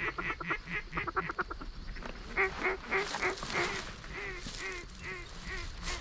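Mallard-type quacking: a fast run of chatter for about the first second and a half, then a slower string of separate quacks that step down in pitch.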